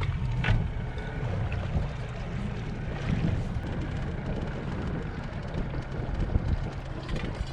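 Wind buffeting the microphone over the steady low rumble of a fishing boat running across a lake.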